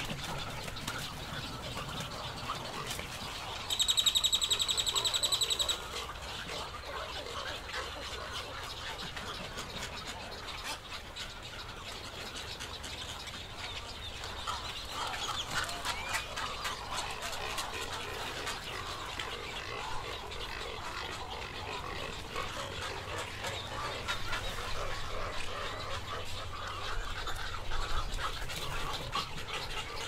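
Continuous mixed calling from a nesting waterbird colony of egrets, roseate spoonbills and cormorants. About four seconds in, a louder, high, rapid trill lasts about two seconds.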